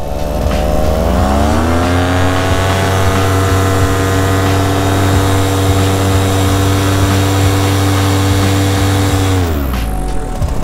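Paramotor engine and propeller running in flight: the pitch rises over the first two seconds as the throttle comes up, holds steady, then drops near the end as the throttle is eased off.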